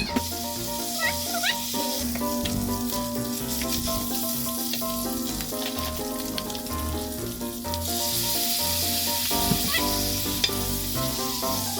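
Pork sizzling as it fries in a pan, the hiss getting louder about two-thirds of the way in, over background music with a repeating bass line.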